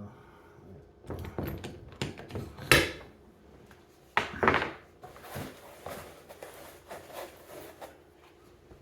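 A golf iron being handled and set into the clamp of a loft-and-lie machine: an uneven run of knocks, clicks and rattles. The sharpest knock comes near three seconds in, with another pair of loud knocks about a second later.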